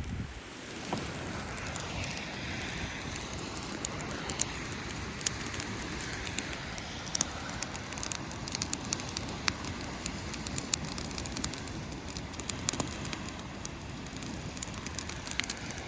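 Wood campfire burning, crackling with frequent sharp snaps and pops over a steady hiss.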